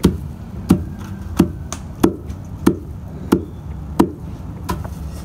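Long wooden pestle pounding dry corn kernels in a wooden mortar: a regular thud about every two-thirds of a second, seven or eight strokes in all.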